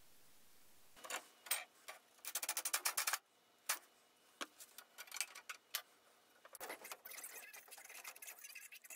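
Light clicks and taps of wooden jig parts and tools being handled, with a quick run of rapid ticks about two to three seconds in, then scraping and rubbing from about two-thirds of the way through.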